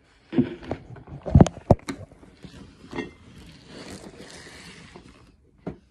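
Makeup items and a plastic compact being handled over a cosmetics bag: a quick run of knocks and clicks about a second in, then rustling, and one more click near the end.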